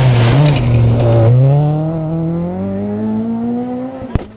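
Rally car engine taking a hairpin: a short throttle blip at low revs, then accelerating away with its pitch rising steadily as it fades into the distance. A single sharp click near the end.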